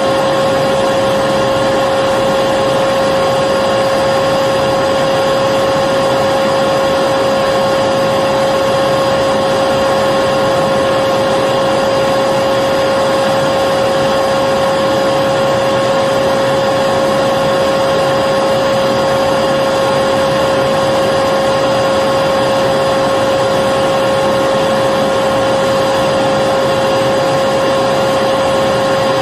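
Electric vacuum cleaner running steadily, a constant motor whine over a rush of air.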